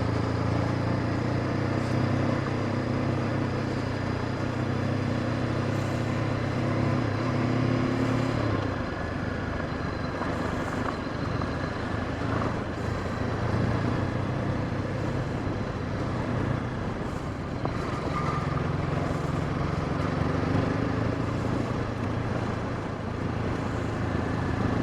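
Honda CB500X's parallel-twin engine running at low revs while being ridden on a dirt trail; its note sags about a third of the way in and picks up again past the halfway point.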